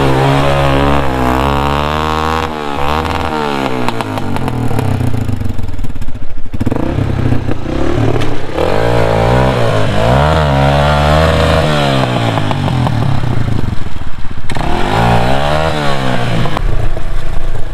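Dirt bike engine revved hard in repeated rising and falling bursts, with a brief drop about six seconds in, as it struggles under load for grip in soft mud at the bottom of a water-filled pit. The rear wheel spins and scrapes in the mud.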